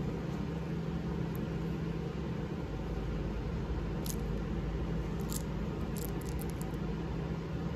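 Steady low hum with a faint hiss, like a running appliance or fan. From about four seconds in come a few light clicks of Cadbury Gems, small hard candy-coated chocolates, tapping against each other in a hand.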